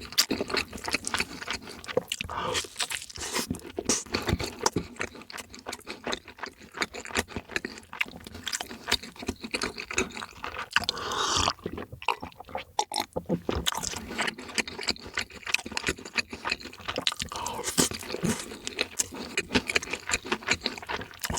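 A person chewing crunchy fried chicken close to the microphone: a dense, continuous run of crisp crunches and chewing.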